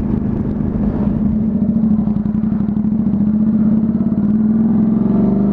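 Honda CTX700's 670 cc parallel-twin engine running steadily at road speed, its note rising slightly near the end.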